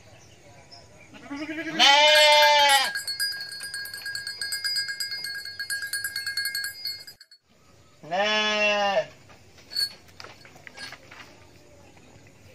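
Sheep bleating: two long, quavering baas, one about two seconds in and one past the middle. Between them a steady high ringing with a fast rattle cuts off sharply.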